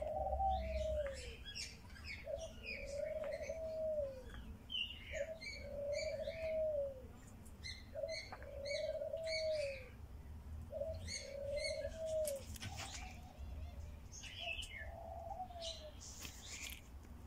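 A dove cooing: a series of soft, even, arched coos, each about a second long, repeating every second or two, over the quick high chirps of small songbirds.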